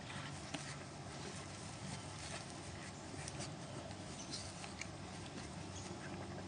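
Two dogs, a husky-type dog and a large black long-haired dog, play-fighting: faint scuffling with scattered small clicks and ticks. Underneath is a steady hiss and a low hum.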